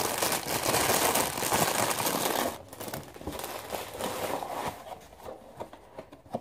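Thin plastic bag crinkling loudly as it is handled, stopping about two and a half seconds in, followed by softer rustles and light taps.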